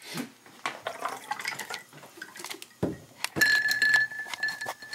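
Glassware clinking and knocking while a drink is poured and mixed by hand. A steady high ringing tone sounds for about the last second and a half.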